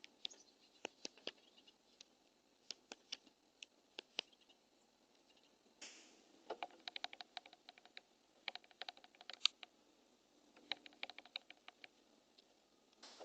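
Faint, irregular light clicks and taps coming in quick runs, with short pauses between them.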